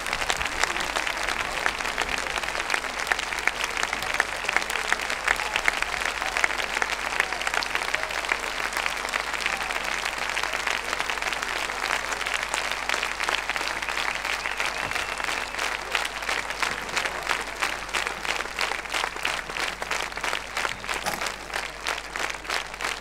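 Large audience applauding, the dense clapping settling into rhythmic clapping in unison in the second half.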